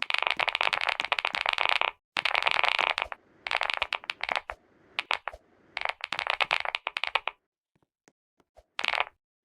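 Fast typing on a computer keyboard, played to show off how the keys sound. It comes in bursts of rapid clicking, about a second or two each, with brief pauses between them, and slows to a few scattered keystrokes near the end.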